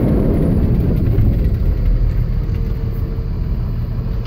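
Pickup truck driving, its engine and road noise a steady low rumble heard from inside the cab.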